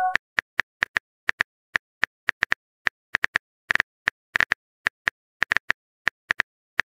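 Phone keyboard typing sound effect: a run of short, sharp clicks at an uneven pace, about four a second.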